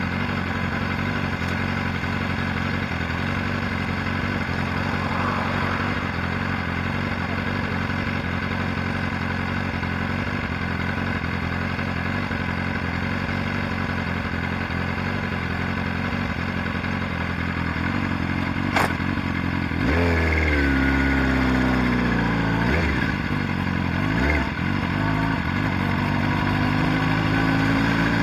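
Motorcycle engines running at idle with a steady note. A sharp click comes just before twenty seconds in. From then the engine sound is louder and deeper, its pitch sliding down and back up a few times, and a note climbs in pitch near the end.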